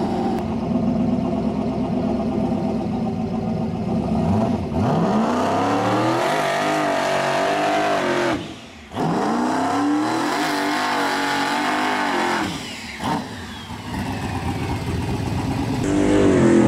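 Fox-body Mustang drag car's engine running at a lumpy idle, then revving up hard and holding high during a burnout with the rear tyres spinning. The engine drops off suddenly twice and comes back up.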